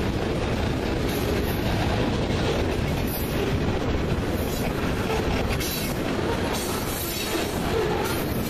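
Freight train cars (covered hoppers, a boxcar and wrapped-lumber flatcars) rolling past: a steady rumble and rattle of steel wheels on rail, with a few brief high wheel sounds.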